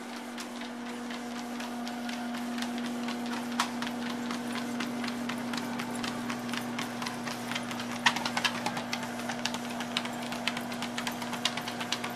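Cadence 4450 treadmill running with a steady motor hum while a German Pinscher trots on the belt, her nails clicking in quick succession; the clicks get louder and more frequent about eight seconds in.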